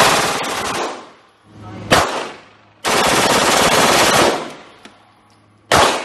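A fully automatic pistol firing four rapid bursts. The first is already going at the start, a short one comes about two seconds in, a longer one of about a second and a half comes at three seconds, and a short one comes near the end.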